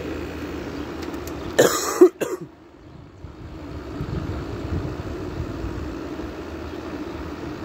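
1986 Hotpoint window air conditioner running with a steady hum. A person coughs once about two seconds in.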